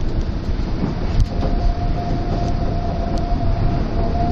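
Shōnan Monorail suspended car running at speed, its running gear rumbling steadily as heard inside the car. A steady whine comes in about a second in and holds.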